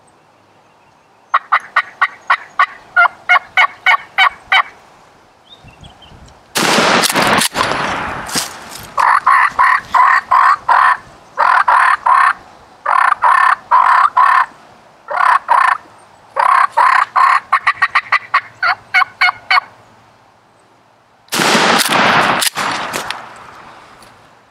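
Wild turkey gobblers gobbling in rapid rattling runs, over and over. About six and a half seconds in comes a loud blast, the shotgun shot that drops one of the toms. Near the end there is another loud rushing burst as the downed bird flops and beats its wings.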